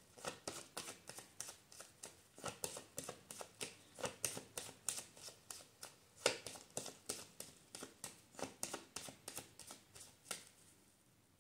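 Tarot cards being shuffled by hand: a quick run of light card slaps, about four or five a second, which stops a little before the end.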